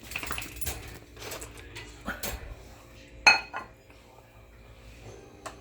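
Dog food dishes clinking and clattering as they are handled, with one loud ringing clink a little after three seconds in.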